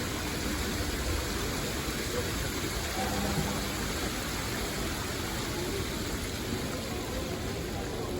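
Plaza fountain water running steadily, with a bell ringing faintly under it, its tone coming in about three seconds in.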